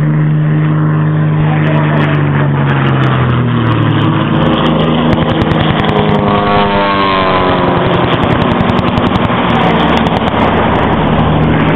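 Single-engine propeller aircraft flying low overhead, its engine droning loudly. The engine's pitch drops over the first few seconds, and a sweeping tone is heard about six to eight seconds in as the plane passes close by.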